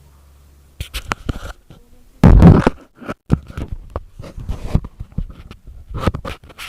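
Homemade flour-and-water slime being squeezed and pulled by hand, making irregular sticky crackles and scrapes. There is one loud bump a little over two seconds in.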